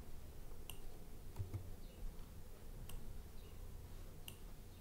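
A few faint, sharp computer-mouse clicks, spaced a second or so apart, over a low steady hum.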